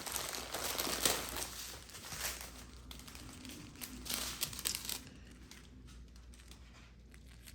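Small plastic baggies of diamond painting drills crinkling as they are handled and sorted, the rustling dying down to a few faint ticks near the end.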